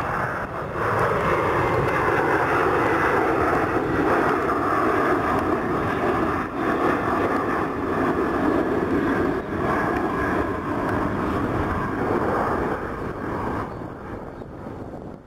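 Boeing 737-700's CFM56-7B turbofan engines at climb-out power as the airliner passes and climbs away: a loud, steady jet rush with a whining tone that drops in pitch over the first few seconds. The sound fades over the last couple of seconds as the jet recedes.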